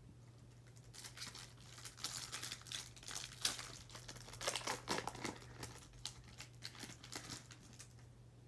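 Foil trading-card pack wrapper crinkling and tearing as it is opened, a dense run of crackles that starts about a second in and stops near the end.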